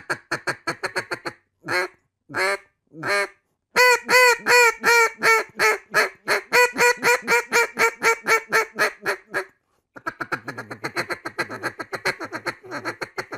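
Duck Commander Pioneer double-reed duck call, a mid-range call, blown in a sequence of hen-mallard quacks. It opens with a quick run of short notes and three drawn-out quacks, then a long run of loud, evenly spaced quacks. After a short pause near the middle comes a fast, quieter chuckle of short notes.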